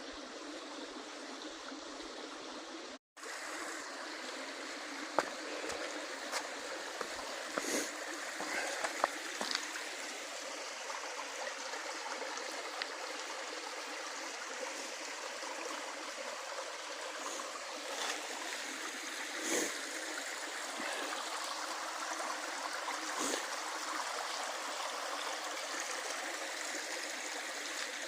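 A stream running steadily, a constant rush of water. It drops out abruptly for a moment about three seconds in, and scattered light knocks sound over it.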